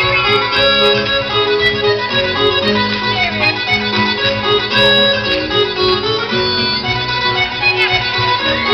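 Fiddle playing a lively Irish dance tune over an accompaniment, one note after another.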